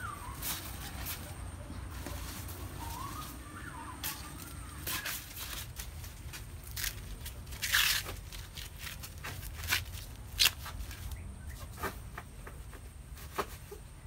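Dry corn husks rustling and tearing as ears of white corn are handled and a husk is stripped back by hand, with a louder rip about eight seconds in and a few sharp crackles later on.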